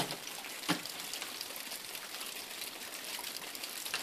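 Steady hiss with one short knock about a second in, from an ice axe striking the ice of a frozen waterfall during a climb.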